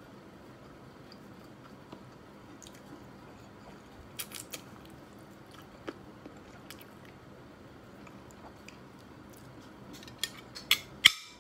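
A person chewing food, with scattered small clicks of cutlery and a quick run of sharper, louder clinks of a spoon against ceramic dishes near the end.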